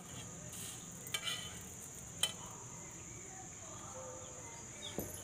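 Dosa cooking on a flat iron griddle over a wood fire: a faint sizzle, with a few sharp clinks of a utensil about one, two and five seconds in.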